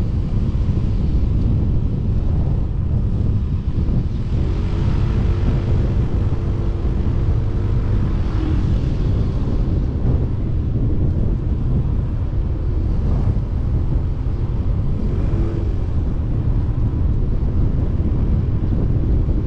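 Wind buffeting the microphone of a camera on a moving motor scooter, a loud steady rush, with the scooter's engine hum faintly under it.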